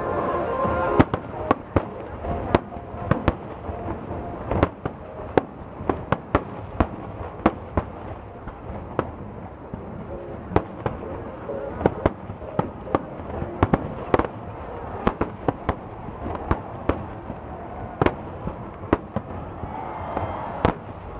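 Fireworks display: aerial shells bursting overhead in a rapid, irregular run of sharp bangs, several a second.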